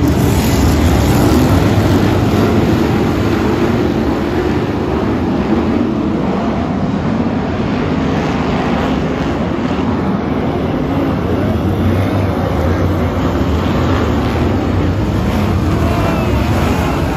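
A pack of BriSCA F1 stock cars' V8 engines running together as the cars circulate the shale oval, a loud, continuous blare of many engines at once, loudest in the first couple of seconds.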